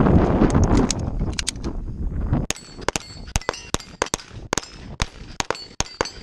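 A pistol shot string on a steel plate rack: for the first couple of seconds there is loud movement and rustling, then a quick run of sharp cracks, several followed by a brief high metallic ring from steel plates being hit.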